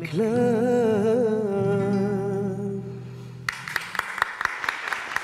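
A woman singing a raï song, holding a long wavering note over a steady accompaniment; the music stops about three and a half seconds in and hand clapping begins.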